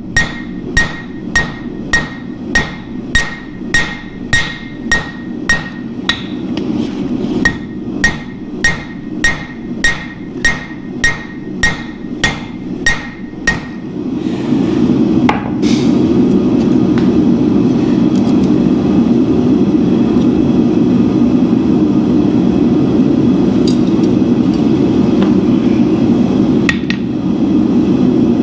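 Hand hammer striking steel on an anvil, about two blows a second with a bright ring after each, pausing briefly partway; after about fourteen seconds the hammering stops and a steady low rushing noise carries on, with a few faint clicks.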